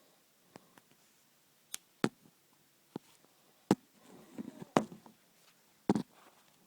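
A run of sharp clicks and knocks at irregular intervals, about eight in all, the loudest in the second half, with a short rough rustle between them.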